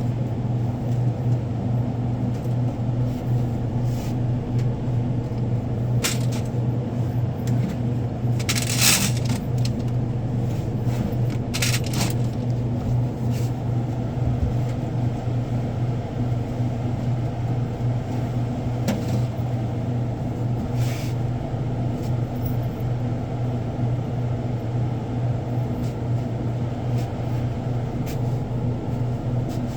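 A steady low machine hum throughout, with scattered clicks, crinkles and light knocks of stock being handled during convenience-store delivery sorting.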